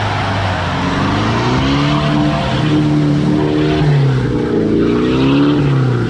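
Mahindra Thar's engine revving up and down several times under heavy load as the SUV ploughs into deep mud with its wheels spinning, bogging down until its front end is stuck.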